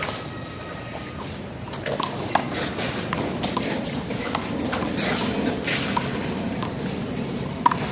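One-wall handball rally: a small rubber ball slapped by hands and smacking off the wall and court at irregular intervals, with sneakers scuffing and squeaking as players move; the sharpest hit comes near the end.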